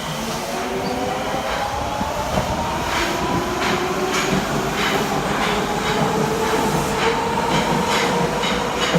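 Electric train pulling away: its traction motors whine in several tones that climb steadily in pitch as it speeds up. The wheels click over rail joints, the clicks coming faster as it gathers speed.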